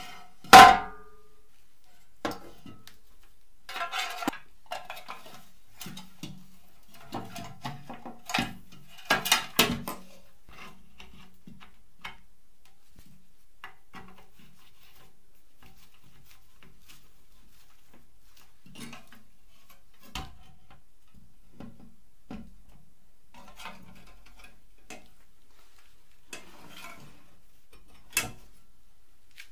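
Painted sheet-metal filmoscope housing and parts being handled and set together on a wooden table: a sharp metal clank about half a second in, a run of knocks and clinks over the next ten seconds, then scattered light taps and one more click near the end.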